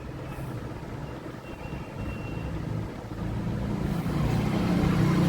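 A motor vehicle engine running close by in the street traffic, its low hum growing louder from about three seconds in.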